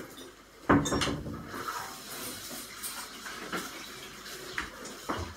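Meat sizzling on a tabletop electric grill plate: a steady, crackly hiss. A sharp knock sounds about a second in, as the tongs work the meat on the plate.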